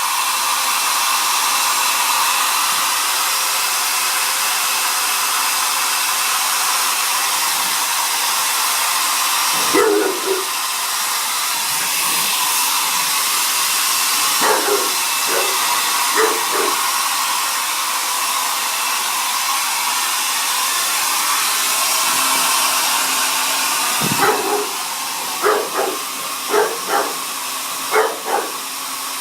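Hair dryer blowing steadily with a bulldog barking at it in short bursts: once about ten seconds in, three times a few seconds later, and a quick run of barks near the end.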